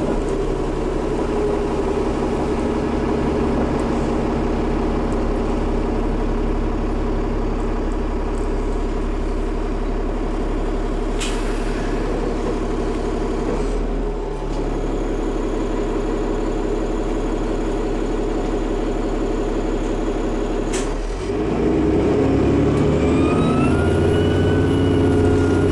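Dennis Trident double-decker bus's diesel engine running under way, its note shifting twice with brief dips. Near the end a high turbo whine rises and then holds; this is the odd-sounding turbo.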